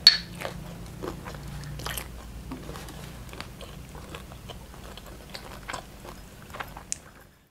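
A person chewing food close to the microphone, with many small wet mouth clicks and one louder click right at the start, over a faint steady low hum; the sound fades out just before the end.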